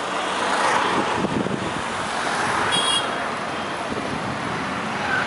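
Town street traffic: cars and motor scooters passing, a steady wash of engine and road noise, with a brief high-pitched beep about three seconds in.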